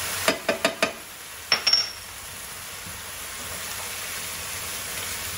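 Onions and peppers sizzling steadily in a skillet as they are stirred, with a handful of sharp clicks and clinks of a utensil against the pan in the first two seconds, one of them ringing briefly.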